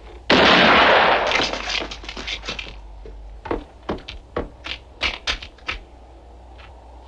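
A single loud gunshot that echoes away over about two seconds, followed by a run of sharp metallic clicks, about a dozen over two seconds.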